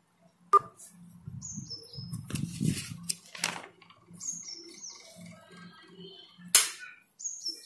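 A small bird chirping in short, quickly falling high notes, in little bursts about three seconds apart. Two sharp clicks, one about half a second in and one near the end, are the loudest sounds.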